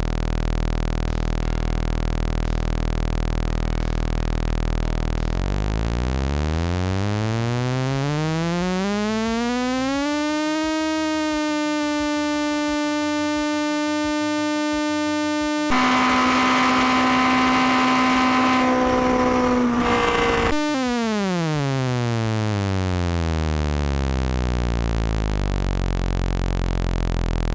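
Simulated four-cylinder engine note revving smoothly from a low idle hum up to a steady high buzzing tone, the pitch of a four-cylinder at 9,000 rpm, and holding there. It turns louder and rougher for about five seconds, then winds smoothly back down to idle.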